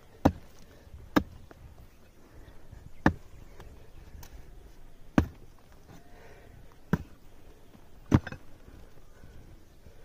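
A wooden-handled pick striking into a hard earth and stone wall: six sharp blows, unevenly spaced a second or two apart.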